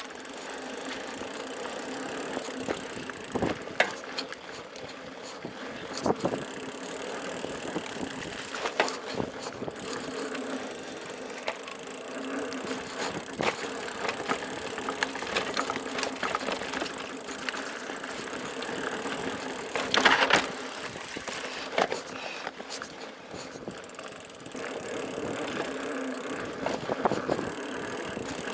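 Giant Talon mountain bike ridden over a dirt singletrack: steady tyre and trail noise, with the bike clattering and knocking over bumps throughout. There is a louder burst of knocks about twenty seconds in.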